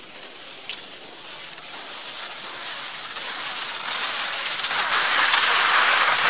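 Peltonen Metsä Step forest skis swishing and crunching over snow as the skier strides along, growing louder as the skier comes close.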